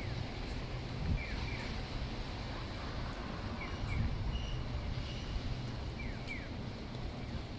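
City street ambience: a steady low hum of traffic, with a pair of short falling chirps repeating about every two and a half seconds.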